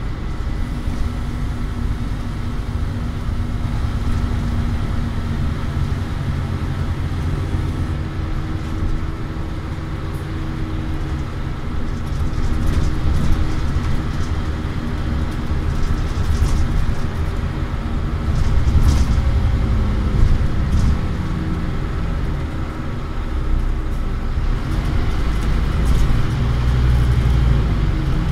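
Scania OmniCity bus engine heard from inside the passenger saloon, running under load with a thrashy note that shifts and swells several times as the bus drives along. Short rattles and clicks come through between about ten and twenty seconds in.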